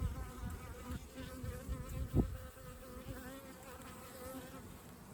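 Honey bees buzzing around an open hive, with a thin, slightly wavering high tone over the hum that the beekeeper takes for a queen piping. One sharp knock about two seconds in.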